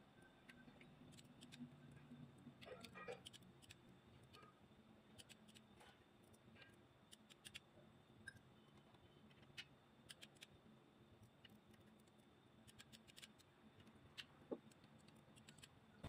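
Near silence broken by faint, irregular small clicks and ticks of hand tools and metal parts being handled on the partly stripped engine.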